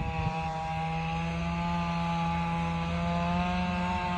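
Chainsaw running steadily at a near-constant pitch as it makes the first cuts into a tall upright log.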